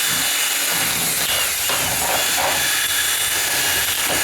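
Electric drill running steadily, its bit grinding into the deadbolt strike plate to ream out the opening so the deadbolt latch no longer rubs. A faint motor whine wavers in pitch through it.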